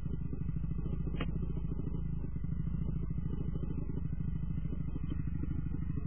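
Honda CRF250 dirt bike's single-cylinder four-stroke engine idling steadily, with one short click about a second in.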